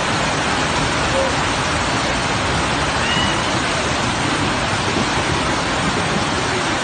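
Loud, steady rush of water from flooding rain, with faint voices here and there.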